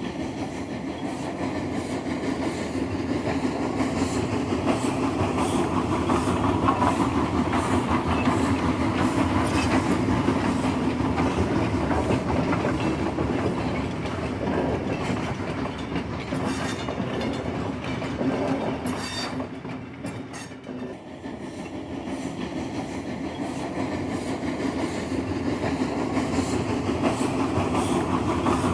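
A train running along the track, its wheels clicking rhythmically over the rail joints beneath a steady rumble, easing briefly about two-thirds of the way through before building again.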